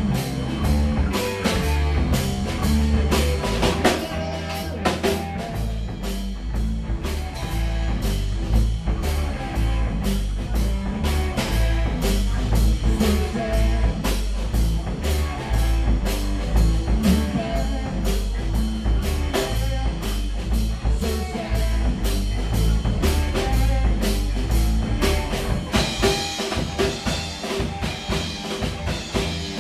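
A live rock band playing an instrumental passage: amplified electric guitars over a steady beat on a drum kit.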